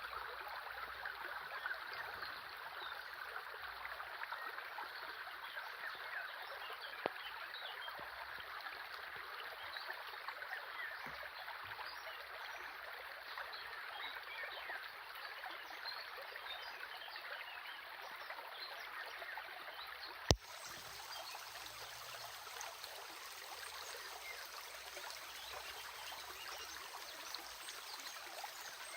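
Stream water running and trickling steadily. One sharp click about two-thirds of the way through is the loudest moment.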